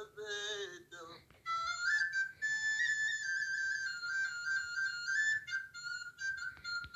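A nay (Arabic end-blown reed flute) playing a high, sustained melodic phrase with small ornamental turns, beginning about a second and a half in after a brief passage of a man's voice.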